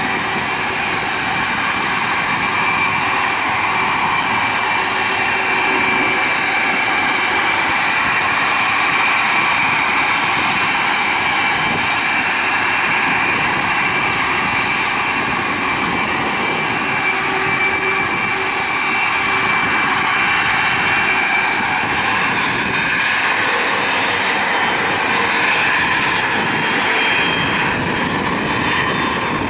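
Boeing 767-300's Rolls-Royce RB211 turbofans running at low taxi power: a steady jet rush with high whining tones. The highest whine fades over the last several seconds as the airliner turns side-on.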